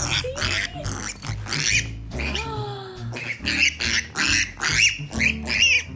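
Young domestic pig squealing excitedly in short, rapid calls, about three a second, with a brief pause a little after two seconds in, over background music.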